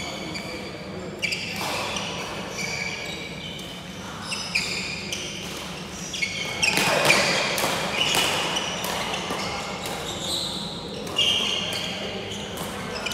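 Sports shoes squeaking on a wooden badminton court floor as players move during a doubles rally, with several sharp racket hits on the shuttlecock a few seconds apart.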